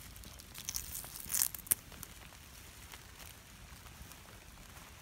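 Wet birch bark being torn off a birch trunk by hand: a few short tearing sounds in the first two seconds, the last ending in a sharp snap, then only faint background.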